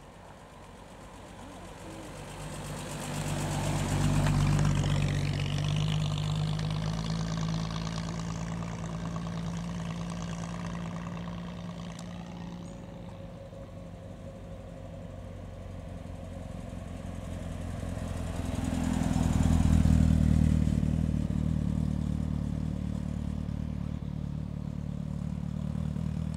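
Two classic cars drive past one after the other at low speed. The first, a saloon, has an engine hum that swells about four seconds in and fades away. The second, an open two-seater sports car, grows loudest about twenty seconds in and keeps running steadily close by.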